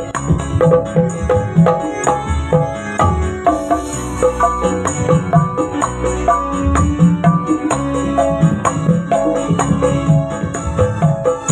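Dangdut orkes music played through a sound system: a fast, steady drum rhythm with tambourine jingles over a melody line.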